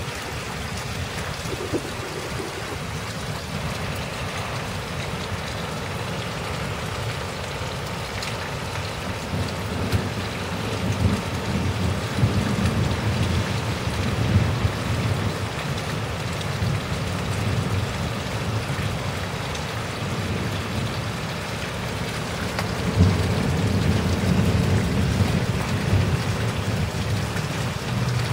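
Heavy rain pouring steadily in a severe thunderstorm, with a low gusty rumble that swells around the middle and again near the end.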